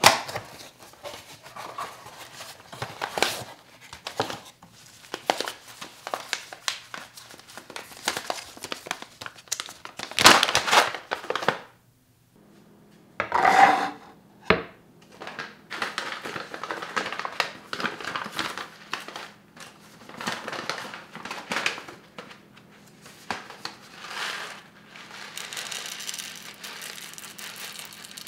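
A cardboard coffee box being opened and a coffee bag crinkling and rustling as it is handled and opened, with clicks and small tearing sounds. A single loud knock comes about halfway through, as a bamboo cutting board is set down on the wooden counter. Near the end, whole roasted coffee beans pour out of the bag and scatter onto the board.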